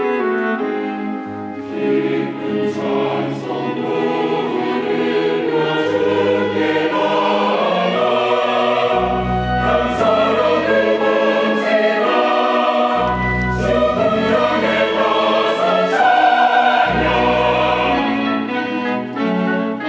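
Church choir singing an anthem in parts with instrumental accompaniment; deep bass notes come in for a second or so several times.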